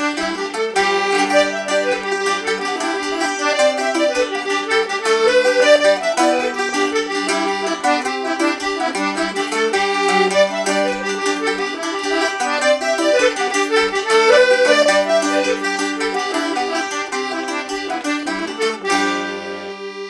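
C single-row melodeon playing a lively Irish jig, with a plucked string instrument strumming along underneath. Near the end the tune stops on a held final chord that fades away.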